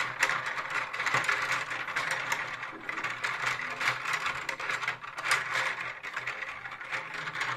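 Plastic tabletop foosball game in play: its rods sliding and twisting in the frame and its plastic players knocking, a continuous rapid plastic clicking and rattling.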